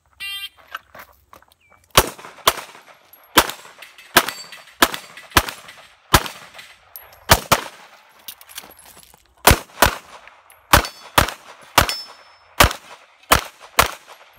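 Electronic shot timer's start beep, then about seventeen pistol shots fired in quick pairs and singles with short gaps between, each with a brief echo.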